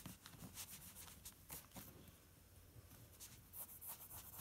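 Faint scratching of pencil strokes on paper: a run of short, quick strokes that thins out a little past halfway, then picks up again near the end.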